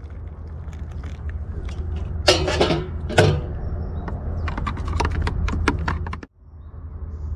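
Hot water poured from a kettle into a plastic cup, then a metal teaspoon stirring in the cup, clicking against it about a dozen times in quick succession. A steady low rumble runs underneath.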